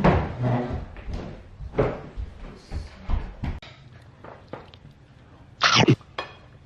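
Knocks and clatter of a chair being adjusted at a dinner table, then a louder short burst of noise a little before the end, followed by a click.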